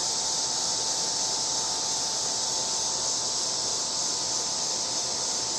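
Outdoor insect chorus, a steady high-pitched buzzing drone that holds unchanged throughout.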